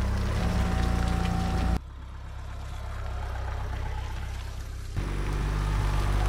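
Mercedes-Benz Sprinter camper van's engine running at low speed, a steady low hum. It drops abruptly to a quieter hum about two seconds in and comes back louder about five seconds in.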